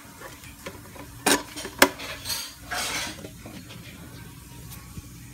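Hard plastic clattering as a plastic cricket keeper and tub are handled to tip live crickets in for a lizard: two sharp clacks about half a second apart, then a rattling scrape.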